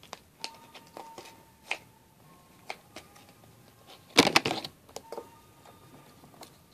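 Small makeup items handled close to the microphone: scattered light clicks and taps, with a louder burst of knocking and rustling about four seconds in.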